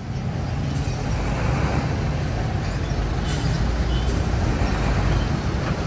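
Coach bus's diesel engine running with a steady low rumble as the bus moves slowly past at close range.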